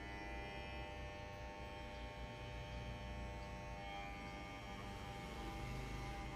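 Electric hair clipper running with a steady buzz as it trims close-cropped hair on a head.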